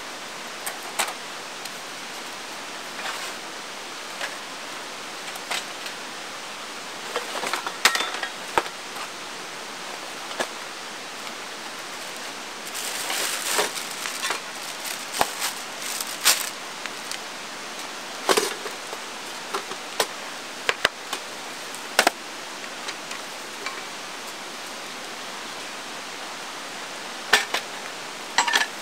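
Steady rush of a river under scattered knocks and clinks of camping gear being handled and set down on a folding table. About halfway through comes a longer stretch of plastic-bag rustling.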